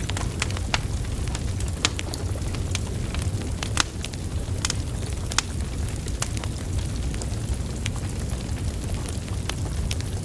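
Wood fire burning: burning logs crackling with irregular sharp pops over a steady low rumble of flames.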